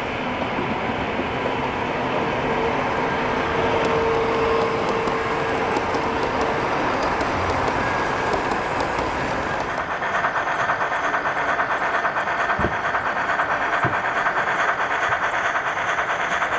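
Gauge 1 model trains running on the layout's track, with wheels rolling over the rails, over a steady background wash. A steady whine rises a few seconds in as a train with coaches comes past, and from about ten seconds in a fast, even rhythmic clatter sets in as a small model steam tank locomotive runs by.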